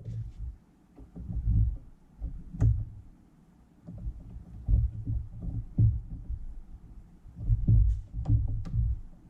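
Handling noise from assembling a fly tying vise by hand: irregular low thumps, with a few sharp clicks of small metal parts, the clearest about two and a half seconds in and a quick run of them near the end.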